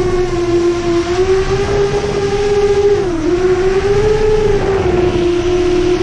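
Brushless motors and 7-inch tri-blade props of an FPV quadcopter whining steadily in flight. The pitch wavers with throttle, dipping about three seconds in and then climbing back.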